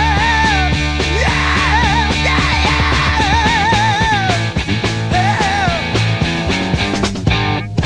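Psychedelic rock music: a melodic lead line held with wide vibrato over bass and drums, with a short break near the end.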